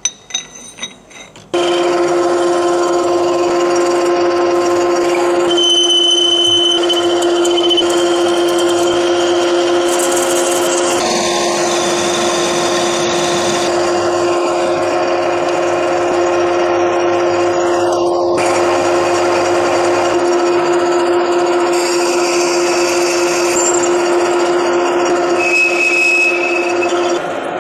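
A power tool running steadily: a constant hum over a rough noise. It starts after a few clicks about a second and a half in and stops just before the end.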